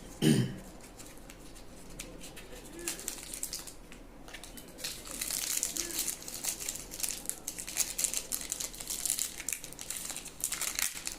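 Plastic packaging crinkling and tearing as it is opened by hand to unwrap a new fan bearing. The crackling grows denser and louder about halfway through. It follows a short low sound just after the start.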